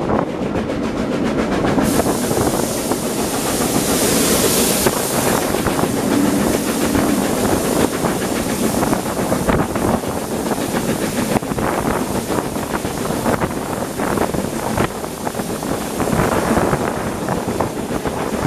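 Steam locomotive working hard at the head of the train, heard from an open carriage window: a run of exhaust beats with wind rushing past and the coach wheels clicking over the rail joints. A louder hiss comes in about two seconds in and lasts a few seconds.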